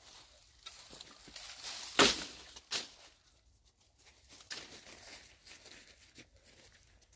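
Dry twigs and brush crackling and rustling, with a sharp crack about two seconds in and a smaller one just after.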